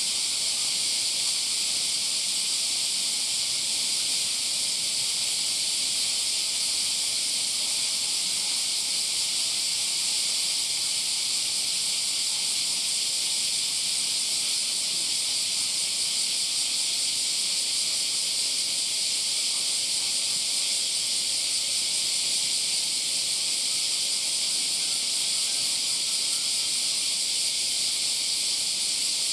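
Chorus of summer cicadas: a dense, high, steady hiss that holds without a break.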